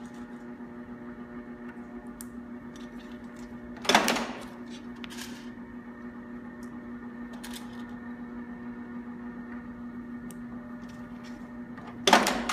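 Morito MT 600 semi-automatic attaching machine humming steadily while its press strikes twice, about eight seconds apart, each a sharp loud impact as a plastic press fastener is set into the tape. Light clicks of handling come between the strokes.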